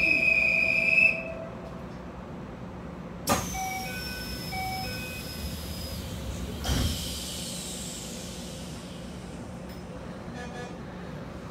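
Commuter train door-closing sequence heard from inside the car: a shrill steady tone for about a second, then about 3.3 s in the doors start moving with a sudden hiss while a two-note door chime rings twice, and the doors thud shut about 6.7 s in.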